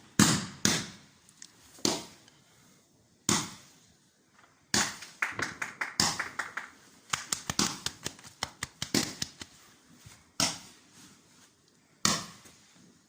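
Fireworks going off: separate sharp bangs, with a rapid run of many bangs in the middle.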